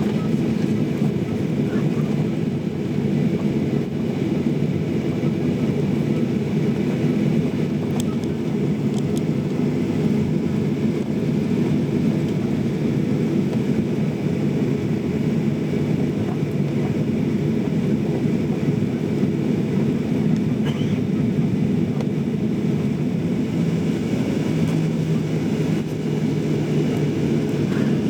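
Steady low rumble inside an airliner cabin, from the jet engines at low thrust and the cabin air, as the plane taxis before takeoff. A low steady hum joins about three-quarters of the way through.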